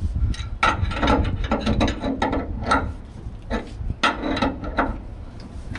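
Hand ratchet wrench clicking in quick runs as a suspension bolt on the panhard bar mount is tightened, in two main bursts with a short pause between.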